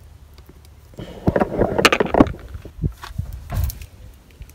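Clicks, clinks and knocks of hand tools being handled, from a small Torx bit set as a bit is picked out. The run starts about a second in, with a couple of duller knocks near the end.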